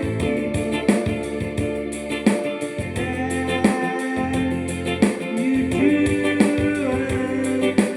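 Electronic keyboard playing an organ-voiced melody over held chords, with a steady beat.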